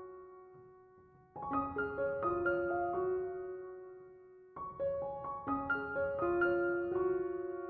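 Background piano music: short phrases of notes, each dying away on a held note before the next phrase begins, twice.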